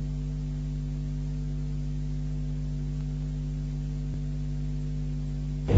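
Steady, low electrical mains hum with a stack of overtones, unchanging in level.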